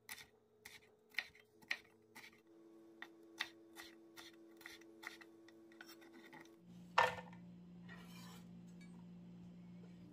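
Chef's knife slicing bell peppers into strips on a wooden cutting board: a string of irregular knife taps against the board, one or two a second. Near seven seconds comes one louder scrape as the cut strips are gathered up with the blade.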